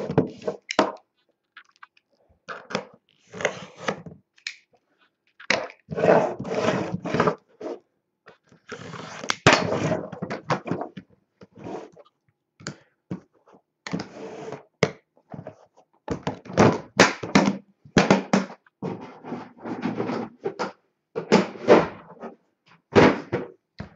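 Aluminium briefcase-style card box being opened and emptied: latches clicking, the lid moving, and hard plastic card cases knocking and sliding on a wooden table, in an irregular run of clicks, thunks and scrapes.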